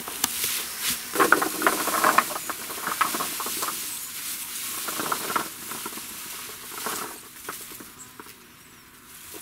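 Plastic mesh sacks of onion sets rustling and crackling as they are handled, with the small bulbs rattling as they are tipped into a plastic bucket. The crackling comes in bursts and dies down near the end.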